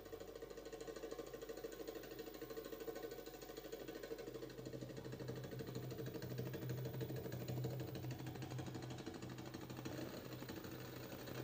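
Quiet belly-dance music held on a fast, continuous hand-drum roll, an even rapid patter of taps, with a steady low hum coming in about four seconds in.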